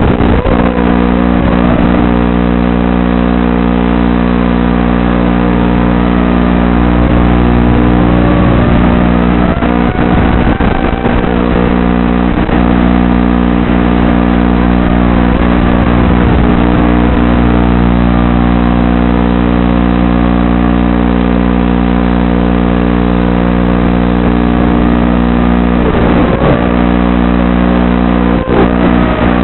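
Wizard X220 racing quadcopter's brushless motors and propellers whining, the pitch rising and falling with the throttle over a steady buzzing hum.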